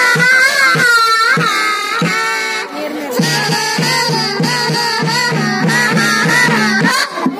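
Folk song: a singer with wavering pitch over a steady drum beat. About three seconds in, a low repeating two-note line joins.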